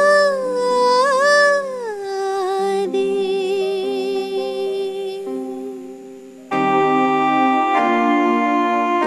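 A woman singing solo, ending her phrase on a long wavering held note over sustained electronic keyboard chords. Her voice fades out about five seconds in, and about a second later louder organ-like keyboard chords come in.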